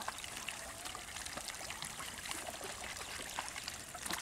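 Faint pond-side ambience: a steady hiss of water with small scattered ticks and light splashes.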